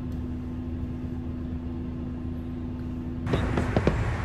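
A steady low hum with one constant tone. About three seconds in it gives way abruptly to a louder outdoor rush of noise, with a few sharp pops in it.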